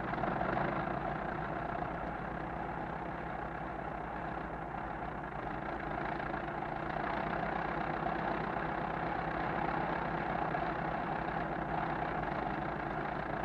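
A motor launch's engine running steadily, a continuous low drone that grows a little louder about halfway through.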